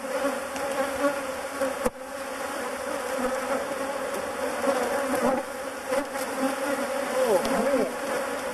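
A dense swarm of Africanized honeybees (killer bees) buzzing around an opened hive in defensive attack, with single bees zipping close past the microphone, their pitch sliding as they pass. A sharp click about two seconds in.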